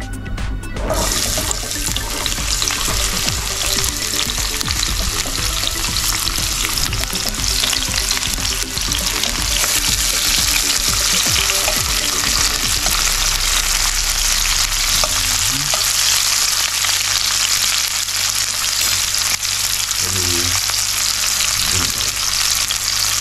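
Sliced onion, carrot and sweet pepper sizzling in hot oil in a stainless steel frying pan, the sizzle starting suddenly about a second in as the vegetables go into the pan, with a spatula stirring them.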